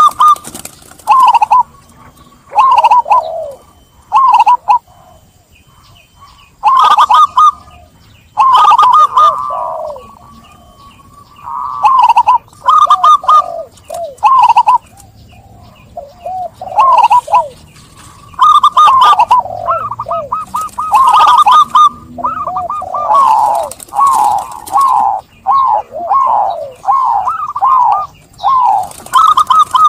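Zebra dove (perkutut) cooing loudly in repeated phrases, with short pauses between bouts; the calls come thicker and overlap in the second half.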